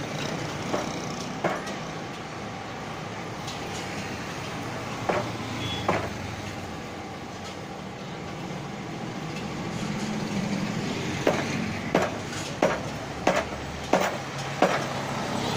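Sharp metal knocks from a TVS Super XL front shock absorber being worked by hand: a few single knocks, then about six in a row near the end, roughly one every two-thirds of a second. Steady street traffic noise runs underneath.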